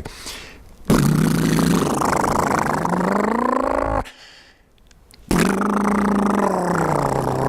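A person imitating a motorcycle engine with the mouth, a buzzing lip-and-tongue trill voiced as two long revs. The first rises in pitch near its end and the second falls away at its end.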